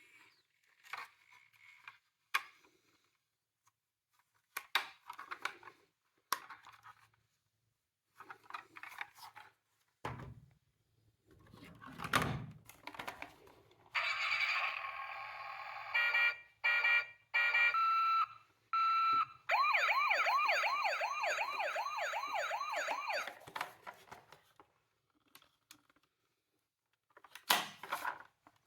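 Electronic siren of a toy emergency vehicle, about halfway in: a steady tone, then a pulsing beep-beep, then a fast warbling yelp for about four seconds before it stops. Before it come scattered plastic clicks and a low rumble, and more clicks come near the end.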